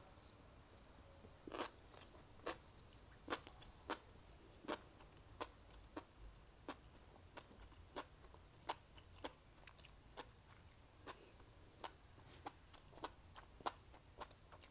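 Close-miked chewing of a mouthful of spicy mala stir-fry: a steady run of sharp, wet mouth clicks, about three every two seconds.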